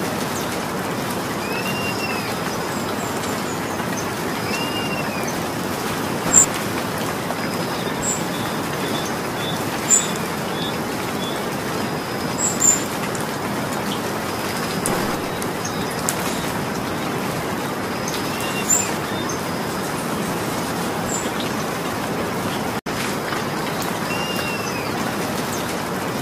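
Steady rainfall, with a bird repeating a short rising-and-falling chirp every two seconds or so and a few sharp high ticks scattered through it.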